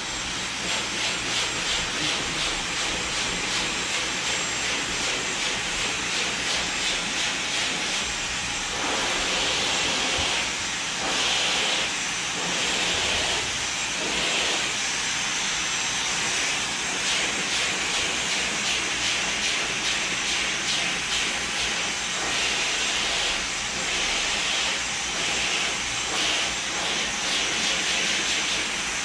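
Handheld hair dryer blowing, a steady rush of air that wavers slightly in loudness.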